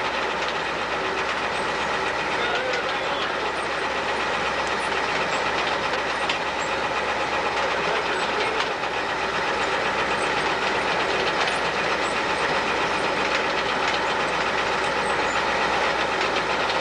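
Heavy machinery running steadily, a continuous rumbling mechanical noise with a fine rattle through it.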